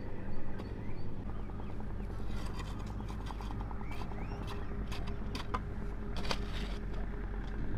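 A hoe chopping and scraping into clay soil, with several knocks and scrapes as earth and clods are pulled up around young corn plants. Birds chirp, over a steady low hum.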